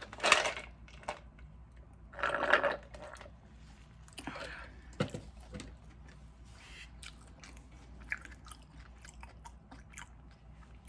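A person chewing food close to the microphone: three loud crunchy bites in the first half, then quieter chewing with many small smacking clicks.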